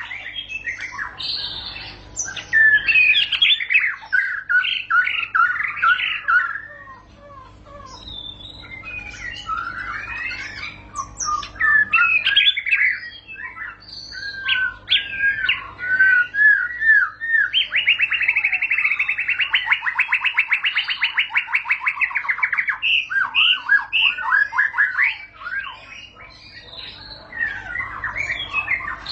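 White-rumped shama (murai batu) singing a varied run of whistles and chirps. About two-thirds of the way through it breaks into a long, very fast trill, its "ngerol" roll, which lasts about five seconds before the varied phrases resume.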